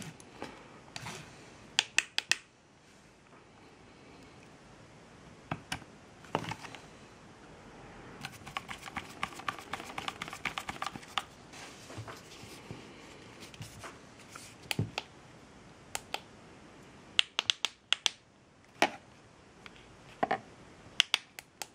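Hands handling and clicking together the plastic housing parts of a small LED inspection lamp: scattered sharp clicks and light knocks, with a run of quick faint ticks around the middle.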